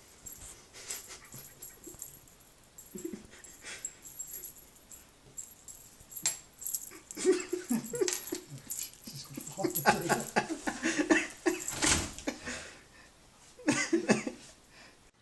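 A pet animal making repeated short, whiny cries, coming thickest in the second half, mixed with light taps.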